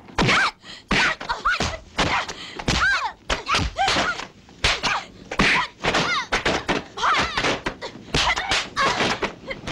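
Martial-arts fight sound effects: a rapid string of punch and kick thwacks, about two a second, mixed with short sharp shouts from the fighters.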